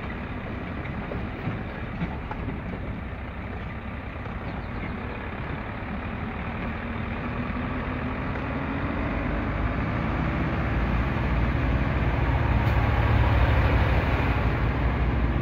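Truck engine heard from inside the cab while driving, with road noise; from about halfway through its note rises and it gets steadily louder as the truck picks up speed.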